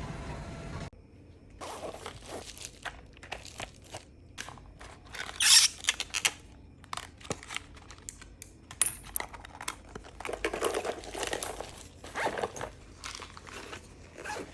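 Irregular rustling, crinkling and clicking, like something being handled at close range, with a few louder bursts. It starts right after a steady background noise cuts off about a second in.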